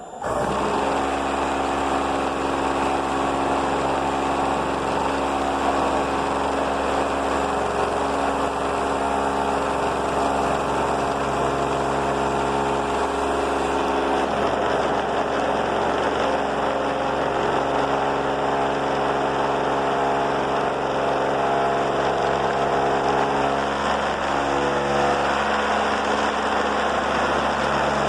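Air compressor for a pneumatic robot gripper cutting in abruptly and running very loud and steady, a motor hum under a broad hiss.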